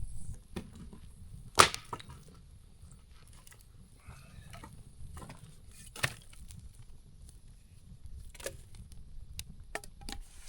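Newly lit campfire of stacked logs crackling, with scattered sharp pops; the loudest comes about one and a half seconds in and another about six seconds in.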